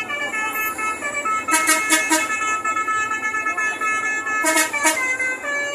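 Bus 'telolet' musical horn, several horn tones sounding together, playing a tune that steps from note to note. Twice, about a second and a half in and again about four and a half seconds in, it gives a quick run of three short sharp blasts.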